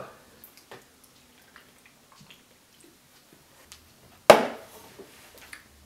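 A man spluttering out a mouthful of beer: faint small sounds of drinking, then about four seconds in one sudden loud spray that trails off over half a second.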